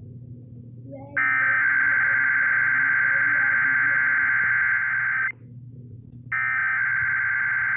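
Emergency Alert System SAME header data bursts: a harsh, buzzing digital screech about a second in that lasts about four seconds, cuts off for about a second, then starts again. A low hum runs underneath.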